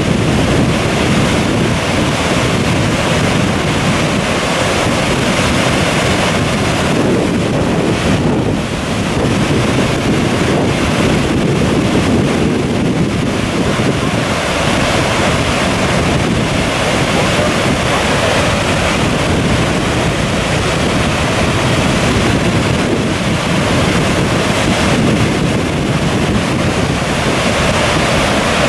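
Goðafoss, a wide horseshoe-shaped waterfall, giving a steady rush of falling water.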